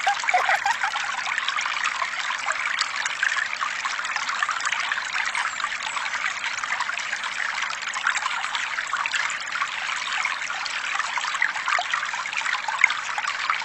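A thin stream of water pouring steadily from a miniature water tanker's small spout and trickling, splashing into a shallow muddy puddle.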